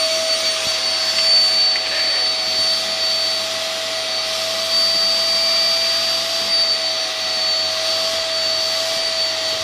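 Vacuum cleaner running steadily with a constant whine, being used to vacuum a cat's fur.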